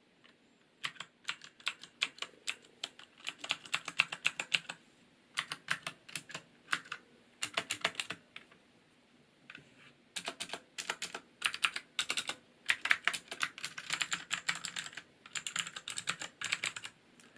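Typing on a Cherry MX Board 1.0 TKL mechanical keyboard with clicky Cherry MX Blue switches: runs of rapid, crisp keystroke clicks, in several bursts with short pauses between, the longest pause a little after the middle.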